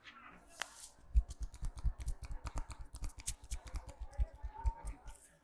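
Rapid rhythmic slapping of hands in percussive massage strokes, each a sharp click with a dull thud, about seven or eight a second. The strokes start about a second in.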